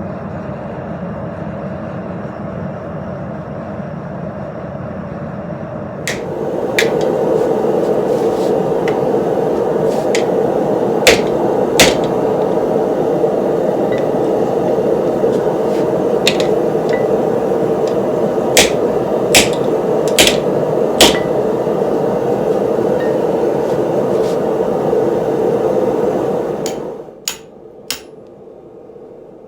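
Steady roar of a Mr. Volcano propane forge burner running, louder from about six seconds in, with scattered sharp hammer strikes on steel over it. The roar drops away near the end, leaving a few more strikes.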